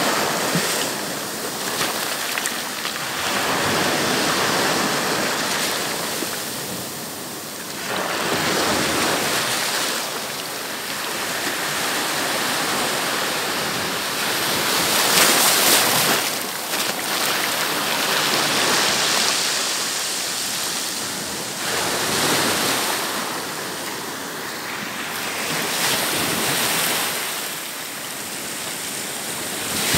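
Sea waves breaking and washing up a sandy beach, the surf swelling and falling back every few seconds.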